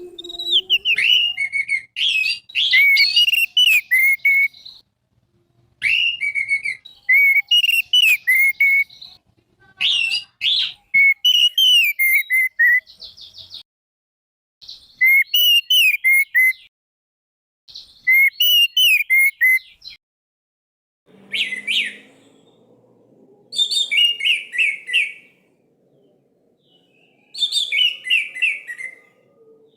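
Orange-headed thrush (anis merah) singing in loud phrases of sliding whistled notes mixed with fast, high chattering, each phrase two to four seconds long, with short pauses between. A faint low hum joins about two-thirds of the way through.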